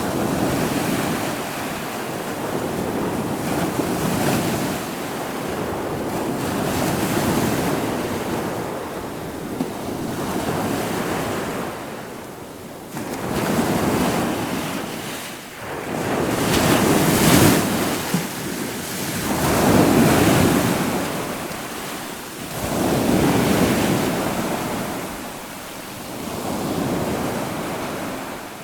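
Ocean surf: waves breaking and washing in, swelling and easing every few seconds, with the biggest surges about two-thirds of the way through. Wind gusts on the microphone run under it.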